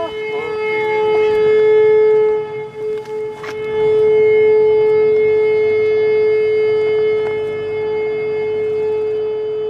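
Sightseeing boat's horn sounding long, steady blasts as a farewell signal: one held tone that breaks off about two and a half seconds in, then sounds again and holds on.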